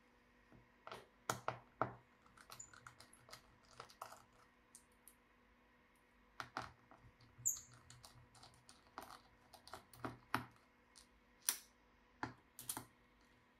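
Irregular small clicks and taps of tools and parts handled on a laptop chassis as it is taken apart, with a brief faint squeak about halfway through.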